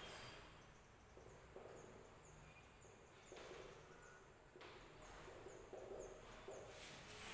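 Faint squeak and scratch of a marker writing on a whiteboard, with faint high chirps repeating about twice a second behind it.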